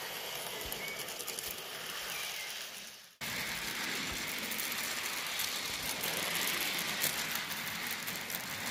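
Model railway train running on garden track: a steady rolling rattle of small wheels over the rails, with many light clicks. The sound cuts off sharply about three seconds in and resumes a little louder.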